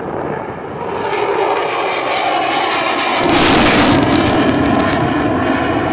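Eurofighter Typhoon's twin EJ200 turbofans passing overhead on a display run: jet noise with a steady whine in it builds from about a second in and surges to a loud roar a little past halfway, staying loud after.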